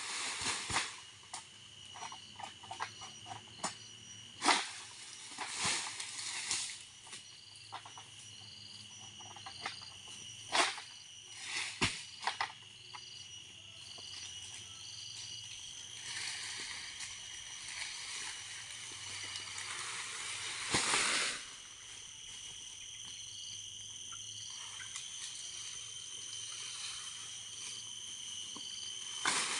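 Insects and frogs calling steadily: a high drone with a short chirp repeating about once a second. Over it come sharp clicks and knocks in the first dozen seconds, then a swell of rustling palm fronds peaking about twenty seconds in, from an oil palm harvester working a long sickle pole and hauling cut fronds.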